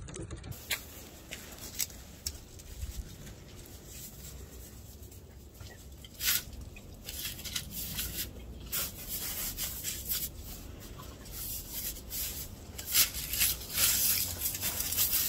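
A dog rubbing and crunching in snow: faint, scattered crunches and scuffs over a low rumble, coming more often near the end.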